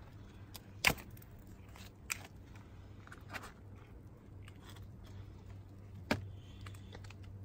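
A few sharp cracks and clicks as crab legs are broken and picked apart by hand, the loudest about a second in and again about six seconds in, over a steady low hum.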